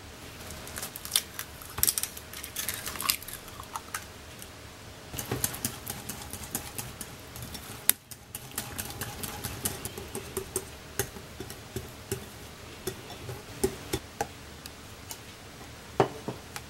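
Rubber spatula mashing and stirring cream cheese with sugar in a glass bowl: irregular sticky scrapes and clicks against the glass. After a sudden break about eight seconds in, the mixing goes on in a smoother, wetter batter.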